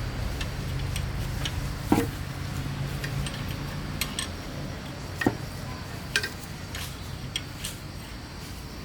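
Metal tools and engine parts being handled: irregular light clinks and knocks, a few sharper ones about two, five and six seconds in, over a low steady hum that fades about halfway through.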